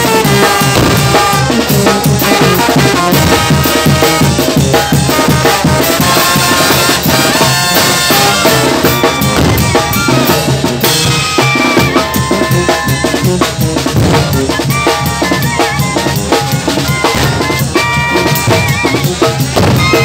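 Mexican brass band (banda) playing live: a steady, busy drum beat of snare and bass drum, with held brass and clarinet notes over it.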